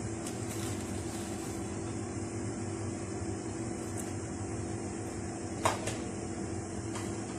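Steady mechanical hum with a few fixed low tones and a faint high hiss, with one short sharp click a little past halfway.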